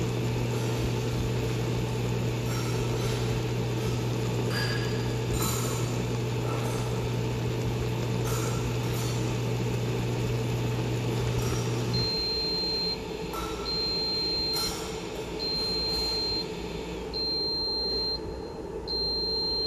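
An electric cooktop humming steadily under a pot of ramen, with occasional small pops from the broth. About twelve seconds in the hum cuts off and the cooktop starts beeping: five long, high beeps about one and a half seconds apart.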